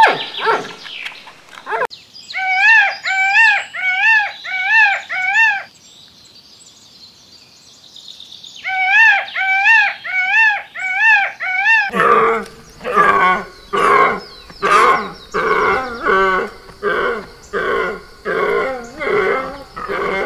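Indian peacock calling: two runs of about six loud, rising-and-falling wails, with a pause of a few seconds between them. From about twelve seconds in, a different animal's lower, rhythmic calls take over, about three every two seconds.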